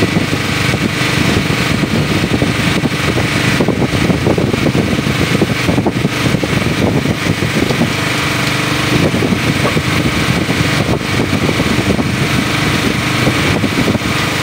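A fishing boat's engine running steadily, a loud, even mechanical din with a constant hum.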